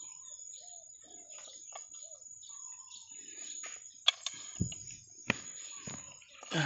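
Birds chirping in short calls throughout, with two sharp clicks about four and five seconds in as duck eggs knock against each other and the basin while it is handled.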